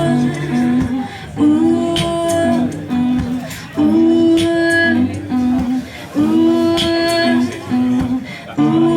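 Acoustic guitar music: a short plucked phrase repeating about every two and a half seconds, with sustained notes under it.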